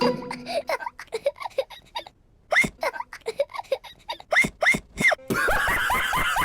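A cartoon piglet's squeaky hiccups, edited into a rapid, irregular string of short hics. About five seconds in they pile up over one another into a dense jumble.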